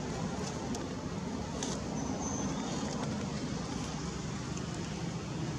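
Steady outdoor background rumble, with a few faint, brief high chirps about two seconds in.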